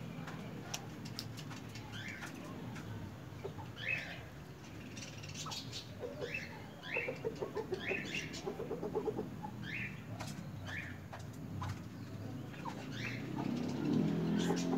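Courting pigeons flapping their wings, with short rising bird chirps every second or so. A quick run of low pulses comes between about seven and nine seconds in.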